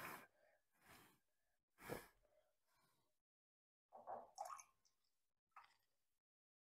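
Near silence, with a few faint, brief noises as cow's milk is poured from a small steel pot into a pan and the steel vessels are handled.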